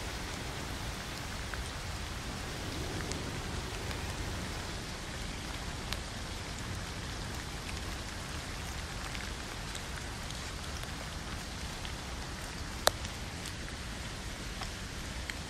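Steady rain falling on a tent, heard from inside, with scattered light drop ticks and one sharp tap about thirteen seconds in.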